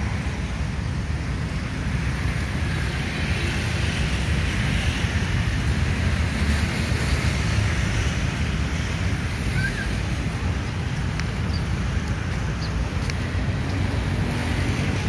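Wind buffeting the microphone, a steady low rumble that gusts up and down. About nine and a half seconds in, a brief high chirp.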